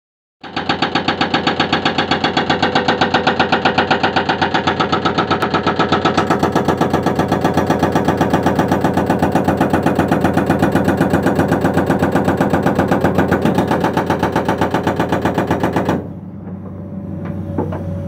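Excavator-mounted hydraulic breaker hammering its chisel into rock: a rapid, steady hammering of many blows a second, starting just after the beginning and stopping suddenly about 16 seconds in. After it stops, the Komatsu 220 excavator's engine keeps running with a steady hum.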